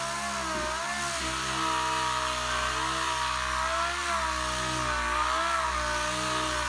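Air-powered DA (dual-action) sander running steadily as it grinds body filler with a coarse 36-grit disc. Its whine wavers slightly in pitch as the pad is pressed and moved, over a steady hiss.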